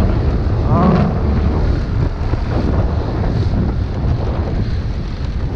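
Heavy wind buffeting on the microphone over the low, steady drone of an Aprilia SR 150 scooter's single-cylinder engine and tyres on the road while riding.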